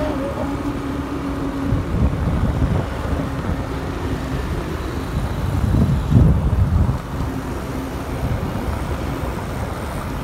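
Motorcycle engine running steadily while riding along a street, with a continuous low hum and road and wind rumble. A louder low rumble swells about two seconds in and again around six to seven seconds in.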